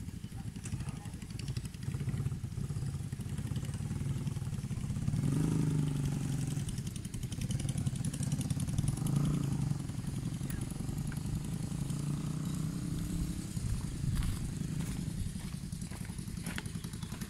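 A motorcycle engine running steadily, swelling louder twice, about five seconds in and again around nine seconds, as if riding past.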